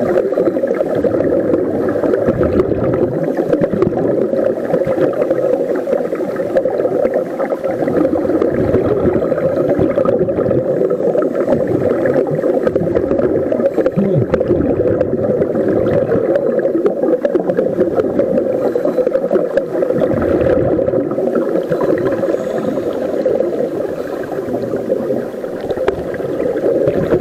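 Muffled, steady underwater drone picked up by a submerged camera, with a few faint steady tones above it.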